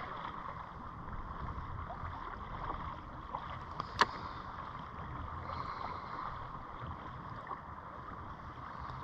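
Small waves lapping and gurgling against the hull of a drifting fishing kayak, a steady wash of water, with one sharp click about four seconds in.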